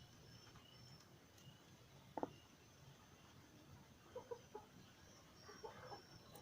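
Faint chicken clucking, a few short calls over near silence.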